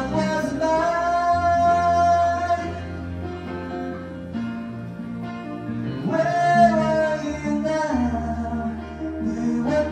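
Live acoustic band music: a man singing into a microphone over acoustic guitar and electronic keyboard. He holds a long note at the start, pauses while the instruments carry on, and comes back in about six seconds in.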